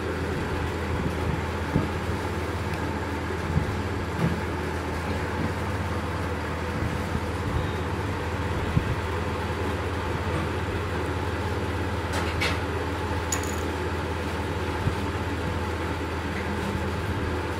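A steady low mechanical hum, with a few light clicks and taps of small plastic parts being handled.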